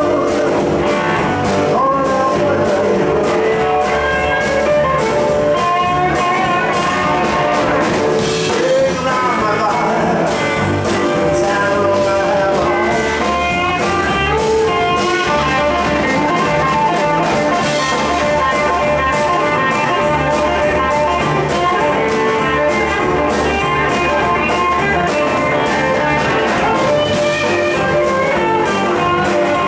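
Electric blues band playing live, with electric guitars out front over bass, drums and keyboard.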